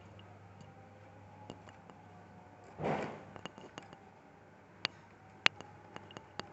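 Sharp plastic and metal clicks and taps from small laptop parts being handled and fitted into the open chassis, with a short scraping rustle about three seconds in.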